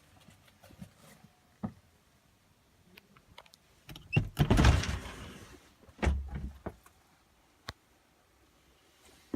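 A sliding door runs along its track with a rushing rumble for about a second and a half, then shuts with a low thump. Small clicks and knocks come before and after.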